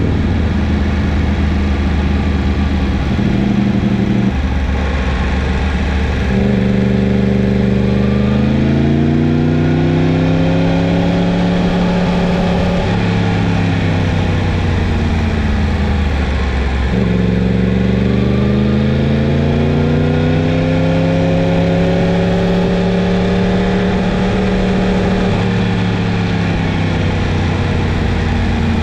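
Yamaha MT-10's crossplane inline-four engine running under load, its pitch climbing and falling again and again as the throttle is opened and closed, with two long climbs in the middle.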